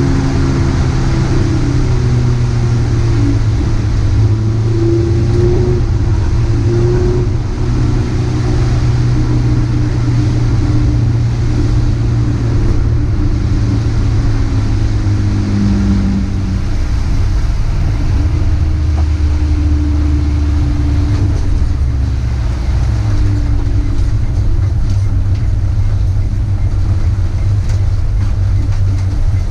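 In-cabin sound of a Dacia Logan race car driving: the engine runs steadily at moderate revs, its note shifting a little, under constant road and wind noise.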